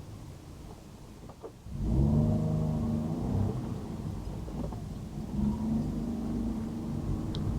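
Car engine with road rumble, quiet at first, then rising sharply about two seconds in as the car accelerates. The engine note then holds steady.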